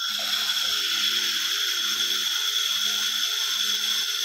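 Handheld fiber laser welding head firing on thin metal sheet: a steady loud hiss that starts suddenly, with a low hum pulsing on and off about twice a second underneath.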